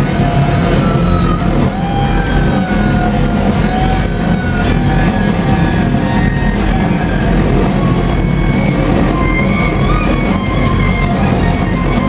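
Rock band playing live at full volume: a lead line of held, bending notes over a steady drum beat and heavy bass, with electric guitar to the fore.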